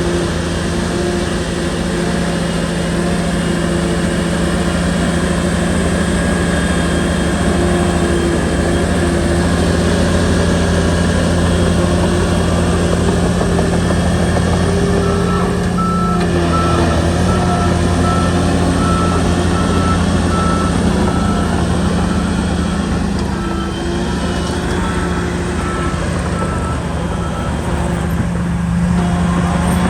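Diesel engine of a Shantui crawler bulldozer running steadily, with a reversing alarm beeping about once a second from about halfway through.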